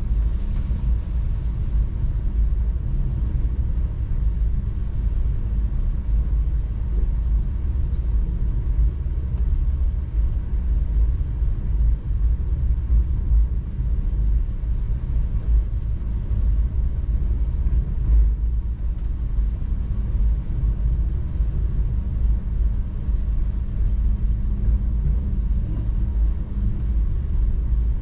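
Passenger train running at speed: a steady low rumble of the moving train, with a faint steady hum and an occasional light click.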